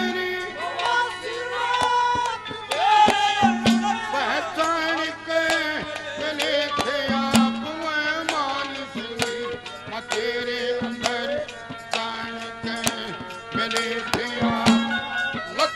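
Live Haryanvi ragni folk music: a male singer with a hand drum and a melodic accompaniment, played without a break.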